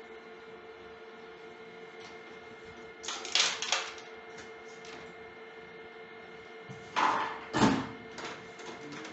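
Plastic casing of a split air conditioner's indoor unit clattering and clicking as it is handled and unscrewed with a screwdriver, in two short bursts about three and seven seconds in, over a steady faint hum.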